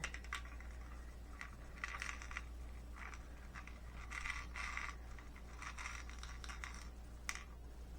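Faint scratchy rustling, several times, with a few light clicks, from a strand of small crystal bicone beads and its packaging being handled. A steady low hum lies under it.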